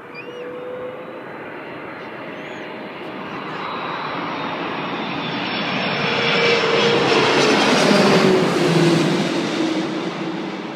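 Airbus A330's twin turbofan engines at go-around thrust as the airliner flies low overhead. The roar swells to its loudest about eight seconds in, and its tone then drops in pitch as the aircraft passes and climbs away.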